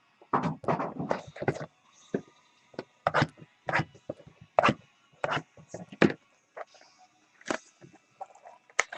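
Irregular series of sharp taps and clacks, about a dozen short knocks a few tenths of a second to a second apart, as trading cards and packs are handled and set down on a table.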